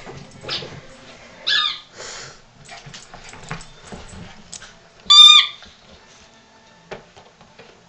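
A small dog biting a squeaky toy ball, which gives two short high squeaks, a wavering one about a second and a half in and a louder, steadier one about five seconds in. Light clicks and knocks of the dog's movements come in between.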